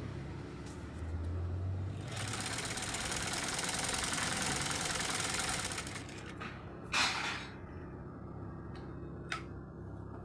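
Black-head Deluxo domestic sewing machine, freshly serviced with a new shuttle hook and tension unit, adjusted and oiled after it kept jamming. It runs fast for about four seconds, then stops. A short sharp noise and a couple of clicks follow.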